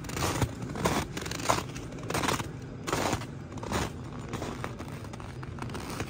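Footsteps crunching in snow at a walking pace, about one step every two-thirds of a second, growing softer in the last couple of seconds.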